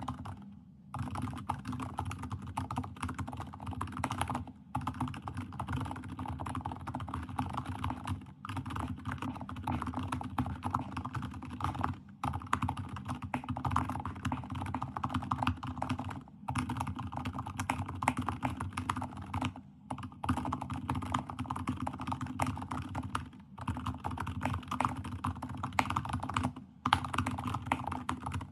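Fast typing on a Keychron K8 Max mechanical keyboard fitted with TTC Frozen Silent V2 silent switches: a dense, rapid run of key strokes, broken by short pauses about every four seconds.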